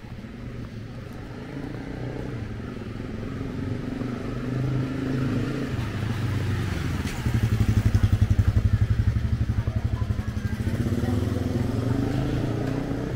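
Motorcycle engines passing at close range. The loudest goes by from a little past halfway, its low engine note pulsing rapidly, and another engine rises in pitch near the end.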